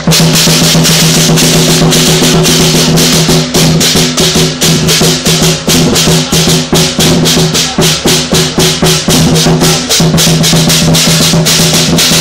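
Southern lion dance percussion band playing a loud, fast beat: rapid drum strokes with crashing cymbals and a steady ringing tone underneath.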